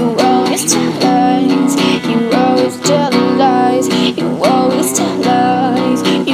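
Rock song demo: strummed guitar chords with a melody line over them in long held notes.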